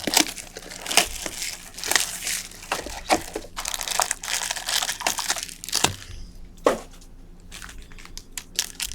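Foil trading-card pack wrapper crinkling and tearing as a pack is opened, with cards being handled. Busy crackling for most of it, then thinning to a few snaps near the end.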